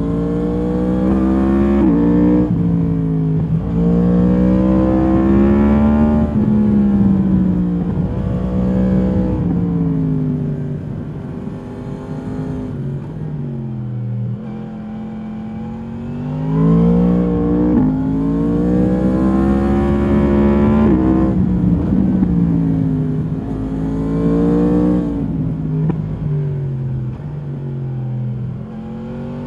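2022 Yamaha MT-10's crossplane inline-four through its stock exhaust, under hard riding: it revs up through the gears with quick upshifts, the pitch falls away as the throttle is rolled off near the middle, then it accelerates hard again and eases off toward the end.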